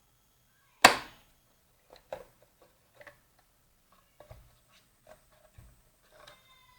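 A sharp snap about a second in, then scattered lighter clicks and knocks from an Audi central-locking vacuum pump housing being handled and taken apart.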